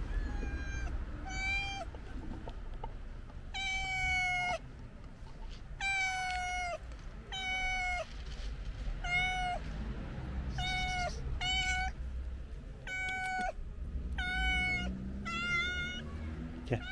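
A hungry calico stray cat meowing over and over, about a dozen short meows in a row, each about half a second to a second long: typical begging for food.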